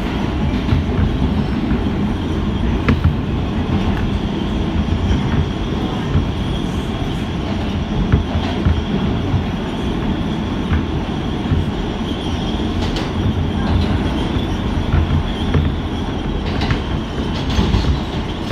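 Kawasaki R160B subway car running through a tunnel, heard from inside the car: a steady, loud rumble of wheels on rail with scattered clicks over rail joints. A faint high wheel squeal comes in partway through.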